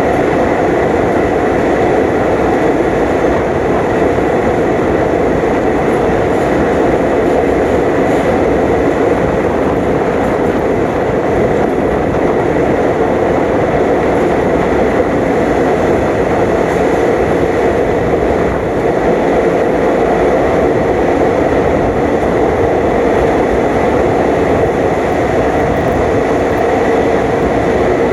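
Passenger train running at steady speed: a loud, even rumble and rush of wheels on rail, with a thin steady whine above it.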